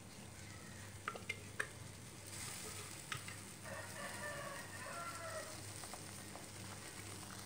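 Blended spice paste sizzling faintly in hot oil in a wok, with a few sharp taps of a plastic spatula scraping paste out of a glass blender jar in the first few seconds. A rooster crows in the background about four seconds in.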